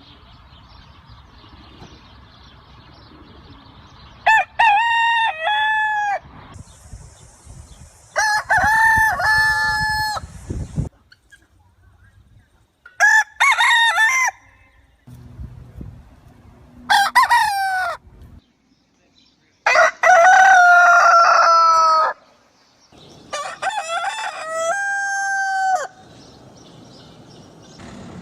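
Rooster crowing about six times, each a cock-a-doodle-doo of one to three seconds separated by short pauses; the crows differ in pitch and background, as if from several recordings.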